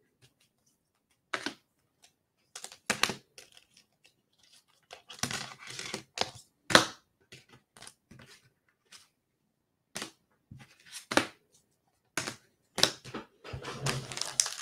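Trading cards and cellophane-wrapped card packs being handled: scattered short clicks and crinkles of plastic wrapping, coming thicker near the end as a cello pack is picked up from the stack.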